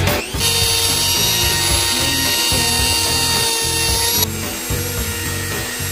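Handheld rotary tool grinding the teeth of an old crosscut saw: a steady high whine that starts just after the beginning and cuts off about four seconds in. Background music with a beat plays underneath.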